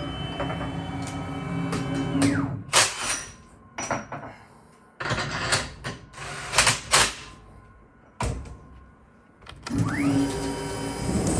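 Grizzly G0704 CNC mill's spindle, a 2 hp three-phase motor on a vector drive through a belt, winds down with a falling whine about two seconds in. A run of sharp clacks and knocks follows. Near the end the spindle spins up again with a rising whine and holds a steady pitch.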